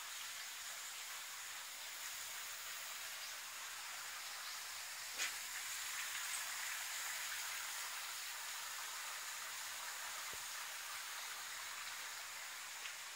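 Steady hiss of outdoor background noise, with a sharp click about five seconds in and a fainter one near the end.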